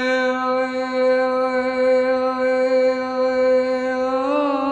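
Male munshid's voice holding one long, steady sung note in a lament chant, breaking into a wavering ornament near the end.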